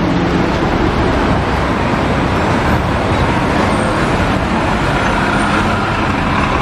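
Double-decker city bus driving along a street, its engine a steady low rumble mixed with road traffic noise.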